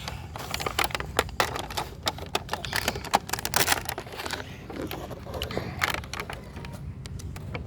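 Someone chewing crunchy food close to the microphone: irregular crisp crunches and clicks, several to the second.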